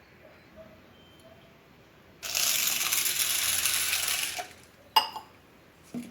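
Water pouring into a bowl of chana and toor dal to soak them, a steady rush lasting about two seconds, followed by a sharp knock.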